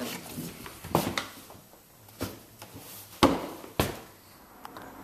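Several irregular sharp knocks and thuds, the loudest a little past the middle, over low rustling handling noise.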